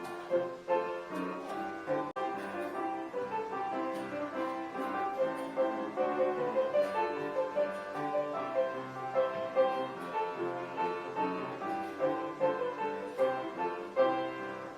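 Piano music: a steady stream of notes and chords played without pause.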